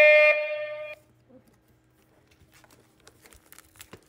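A loud, held high-pitched tone with many overtones stops about a second in. Near silence follows, with faint crinkling of a foil booster pack being handled near the end.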